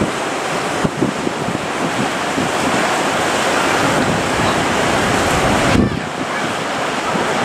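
Heavy surf breaking and washing on the shore, a dense steady rush that swells toward about six seconds in and then dips briefly, with wind buffeting the microphone.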